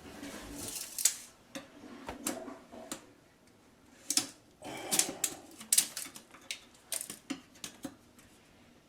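Irregular light clicks, taps and short scrapes from hand work with small tools, loudest about a second in and again between four and six seconds in, then tapering off.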